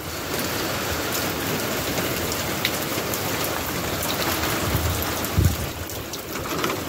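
Hurricane rain falling steadily, a dense even hiss with scattered drop ticks that comes up abruptly at the start. There is a brief low rumble about five seconds in.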